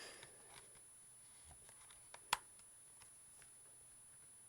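Faint ticks and one sharp click about two and a half seconds in, from the plastic bottom cover of an Asus Eee PC 1000HE netbook being worked loose by hand.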